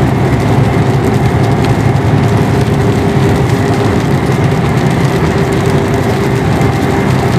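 Truck engine running steadily with road noise, heard from inside the cab while driving: a continuous low drone with a faint steady tone above it.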